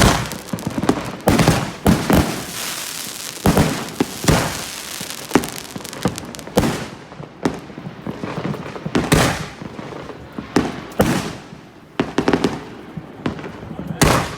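Fireworks going off: sharp bangs about once or twice a second, with a crackling hiss between them that thins out about halfway through.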